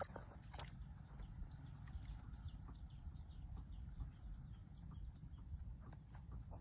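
Faint, quick bird chirps repeating over a steady low rumble.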